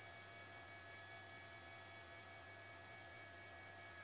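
Faint steady hum with hiss, made of several unchanging tones, low and high, held without any change.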